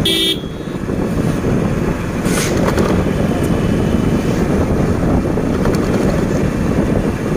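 Steady low rumble of wind on the microphone and road noise from a moving motorcycle. A short horn beep sounds right at the start.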